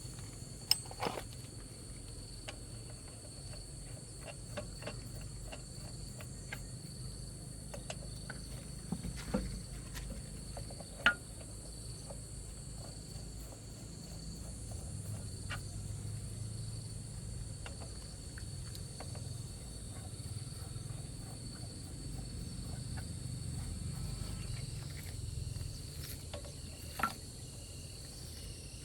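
Steady high insect chirring, with scattered light taps and clicks and a handful of sharper knocks.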